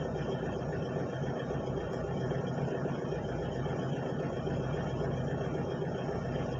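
Excavator engine running steadily, a constant low hum with a rough mechanical rumble and no change in pitch.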